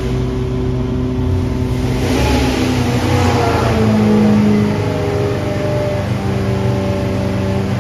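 Mopar 340 small-block V8 with Airflow Research aluminium heads running on an engine dyno as it warms up after its first start. It swells a little about two seconds in and eases back after the middle.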